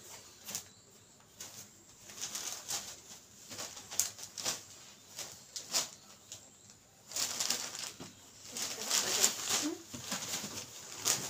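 Cotton handloom saree fabric rustling and flapping as it is unfolded and laid out by hand, in irregular bursts with a few sharp flicks, busiest from about seven to ten seconds in.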